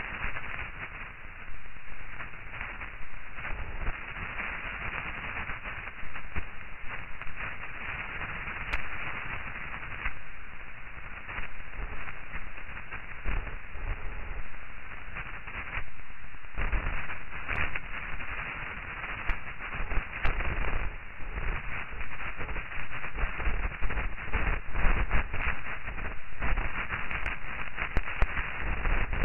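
Muffled, crackling noise with a low rumble, its level surging and dipping unevenly, like radio static.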